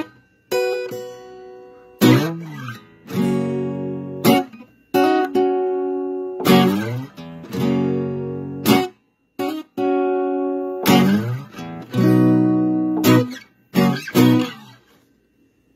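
Acoustic guitar playing a slow series of strummed chords, each struck sharply and left to ring, every second or two. The last chord fades out near the end.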